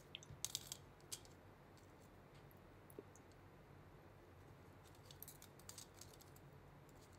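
Faint clicks and small metallic taps of a phone logic board being set and clamped into a metal PCB holder, a cluster in the first second and a few more about five to six seconds in, against near silence.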